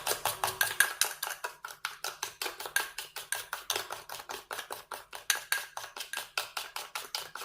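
A spoon beating instant coffee, sugar and a little water by hand, clicking against the side of the cup in a quick, steady rhythm of about six strokes a second. It is whipping the coffee into a thick, creamy foam, which is gradually turning lighter in colour.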